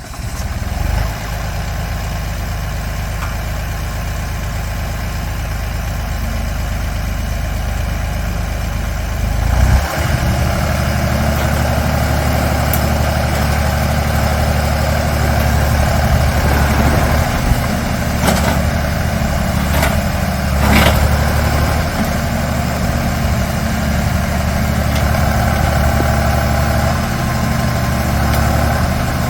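Skid steer loader's engine running at idle, then throttled up about a third of the way in and running steadily louder at higher speed. Two sharp knocks or clanks come later on.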